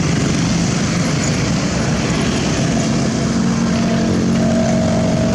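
Diesel engine of a Sakai TS205 pneumatic tire roller running steadily under load during asphalt rolling, loud and low-pitched, with a steady whine coming in about halfway through.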